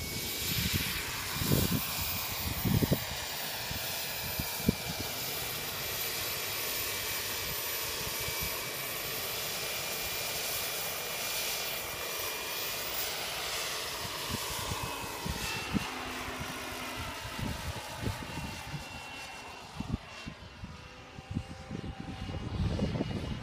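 Small gas turbine engine of an Align T-Rex 700 model helicopter running with a steady high whistle, with a rushing sound from the machine that sweeps up and down in pitch as the helicopter lifts off and flies around. It grows fainter about twenty seconds in as the helicopter climbs high away.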